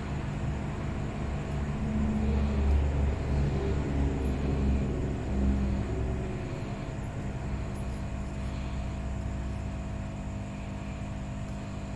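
A low rumble swells for a few seconds, starting about two seconds in, then fades, over a steady electrical hum.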